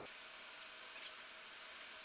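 Faint hiss with a couple of light clicks as 3D-printed plastic plates fitted with ball bearings are handled.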